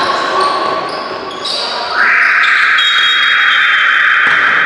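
Basketball game in a gym: ball bounces and court noise, then about two seconds in the scoreboard horn sounds loudly and steadily for about two and a half seconds and cuts off suddenly.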